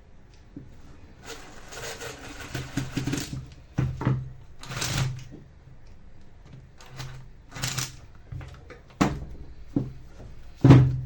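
Irregular bench clatter: a spell of scraping and rustling, then several separate knocks, the loudest near the end.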